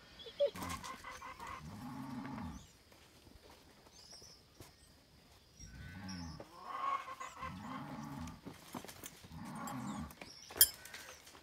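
Cattle mooing in the background: about four low, drawn-out calls, one long one early and three shorter ones in the second half. A single sharp click near the end, from the saddle tack being handled.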